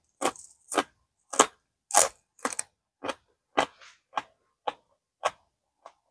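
Crunchy chewing of a raw green onion stalk: about two crisp crunches a second, growing fainter toward the end.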